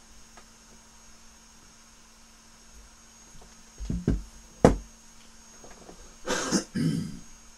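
A few sharp knocks on a wooden tabletop about halfway through, as a handheld drone controller is set down, then a man coughs twice near the end. A faint steady electrical hum runs underneath.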